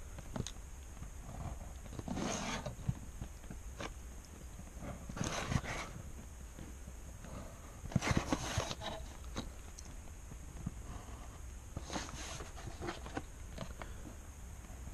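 Pen drawing straight lines along a clear plastic ruler on paper: four short scratching strokes about a second each, with small clicks and taps as the ruler and sheet are shifted between them.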